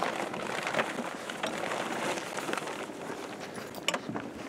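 Fabric snowmobile cover rustling as it is pulled off the machine, with a sharp click near the end.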